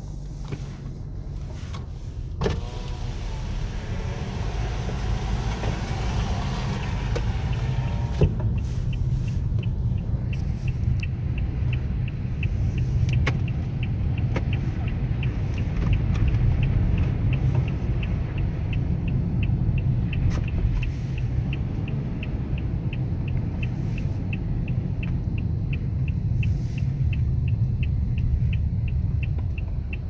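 Inside a car driving through snow and slush: the steady low rumble of engine and tyres. Between about two and eight seconds in comes a wavering rubbing sound with a click at each end, and from about ten seconds in a regular ticking, about two a second, runs on over the rumble.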